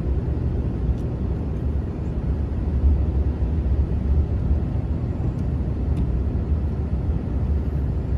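Steady low rumble of a car driving, its road and engine noise constant, with two faint clicks.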